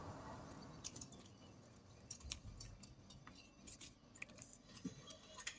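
Faint, scattered crinkles and ticks of a sheet of paper being folded and its crease pressed down by hand, over near-silent room tone.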